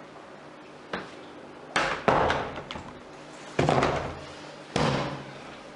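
A wooden door banging: a faint knock about a second in, then four loud bangs a second or so apart, each dying away quickly.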